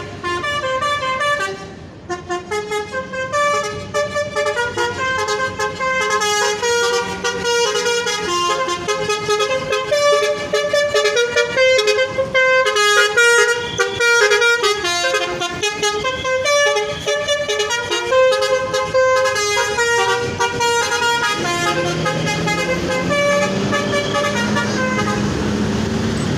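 Basuri V3 telolet multi-tone bus horn playing a fast tune of short notes that step up and down, for about twenty seconds. Near the end the tune thins out and a low rising drone comes in underneath.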